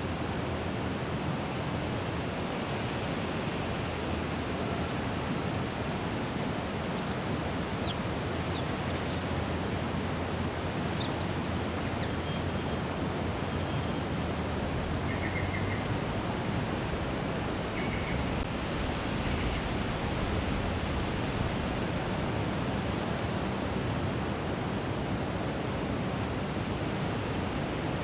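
Steady, even rushing noise of an outdoor nature ambience, with faint, scattered short high bird chirps.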